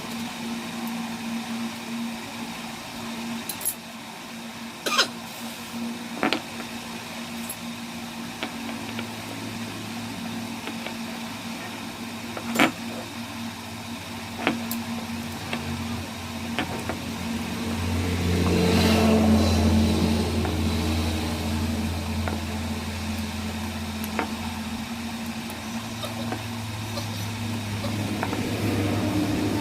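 Car engine running steadily, its hum deepening and swelling for a few seconds past the middle. Scattered sharp clicks and knocks of work on the car.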